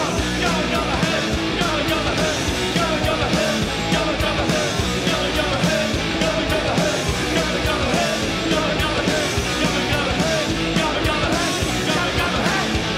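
Loud, fast punk rock: guitars, a driving steady beat and shouted singing.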